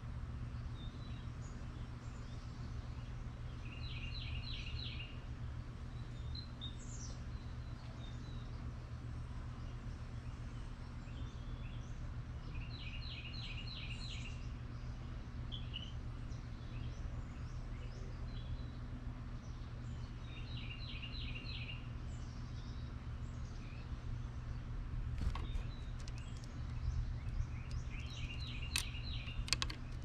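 Songbirds calling, one repeating a short, fast trill of a few notes about every eight seconds, with scattered single chirps between, over a steady low hum. A few sharp clicks come near the end.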